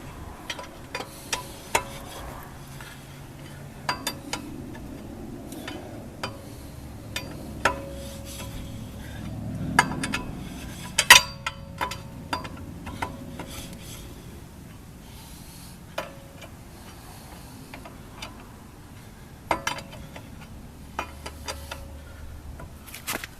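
A metal lug wrench working lug nuts off a car wheel: irregular sharp metallic clinks, several of them leaving a brief ringing tone.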